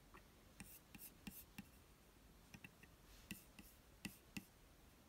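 Faint, irregular clicks of fingers pressing a MacBook Pro's trackpad, about a dozen short clicks in quick groups.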